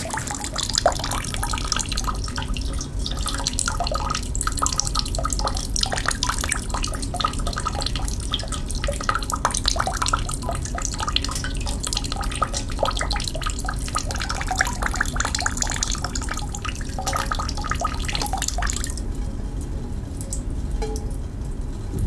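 A thin stream of water falling from a small nozzle and splashing steadily below in a quick run of small drip-like spatters; the splashing becomes softer near the end.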